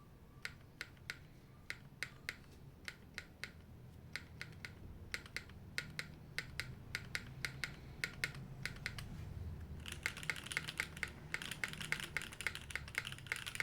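Typing on a Navi60 mechanical keyboard with Cherry HB switches, Staebies stabilizers and GMK keycaps. Separate keystrokes at first, then quick, continuous typing from about ten seconds in.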